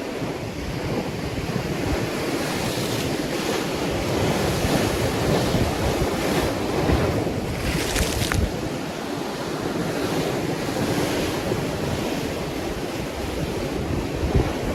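Ocean surf washing continuously, with wind buffeting the microphone. A wave breaks more brightly about eight seconds in.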